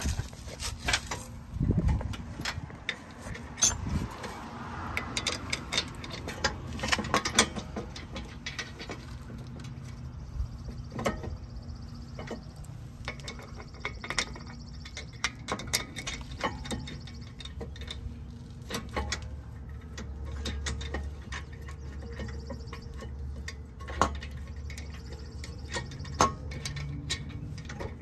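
Scattered clinks, taps and knocks of metal brake parts and tools being handled as a brake caliper is fitted into place on its bracket.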